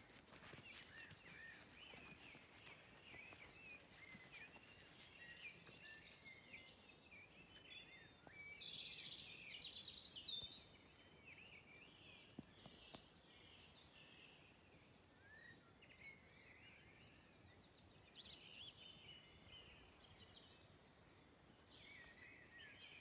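Faint birdsong: several small birds chirping and warbling in short glides, with a louder run of rapid notes about eight to ten seconds in.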